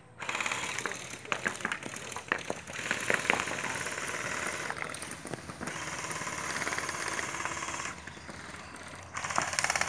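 Electric gel blasters firing on full auto in several long bursts that start and stop, each a very fast, even mechanical chatter.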